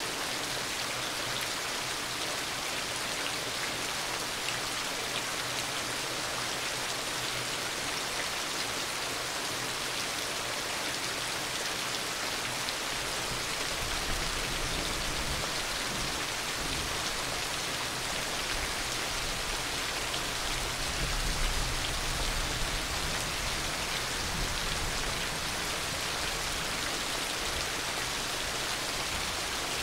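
Heavy rain falling steadily, a dense even hiss of drops. A low rumble joins about halfway through and swells briefly about two-thirds of the way in.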